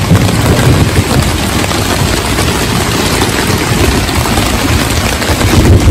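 Heavy rain falling on a tarp overhead: a loud, steady hiss with a low rumble underneath.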